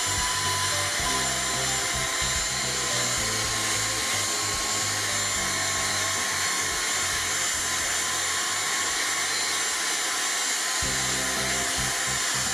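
Dyson cordless stick vacuum running steadily with a high whine as its nozzle is worked over a speaker's cabinet and cone to suck up dust.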